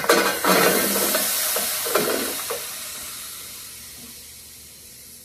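Shrimp frying in hot vegetable oil in a pan, a loud sizzle that starts strong and fades steadily over a few seconds as the sizzling dies down.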